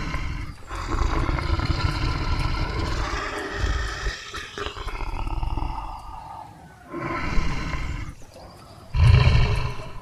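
Tiger roaring: a run of about five long, deep calls with short pauses between them, the loudest near the end.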